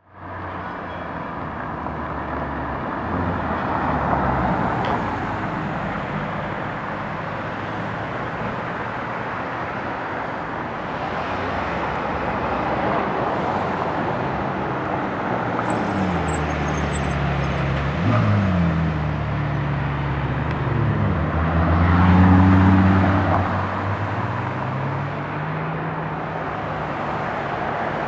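Supercar engines and road traffic: a steady hiss of cars on the road, then from about halfway a loud engine note that falls and rises in pitch as cars accelerate and drive past, loudest about three quarters of the way through.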